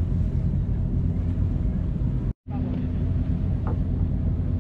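Motorized outrigger boat's engine running steadily under way, a low drone heard from on board, with a short break in the sound about halfway.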